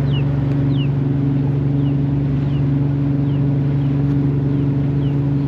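Ferry's engine running at a steady, loud drone. Faint short high chirps, falling in pitch, repeat over it about once or twice a second.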